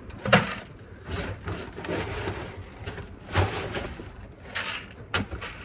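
Calf grain being scooped and poured in several short pours, with a sharp knock about a third of a second in and another near the end.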